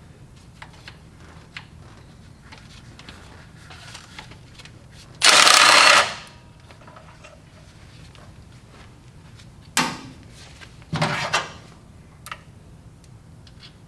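A handheld power tool running on valve cover bolts: one loud burst lasting under a second about five seconds in, then two shorter bursts near the end, with small clicks of tools on metal in between.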